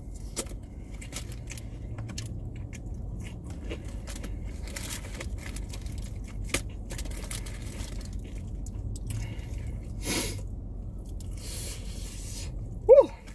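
Crispy fried chicken being eaten close to the microphone: crunchy bites, tearing and chewing, with many short crackling ticks. Near the end comes a brief squeaky pitched sound, the loudest moment.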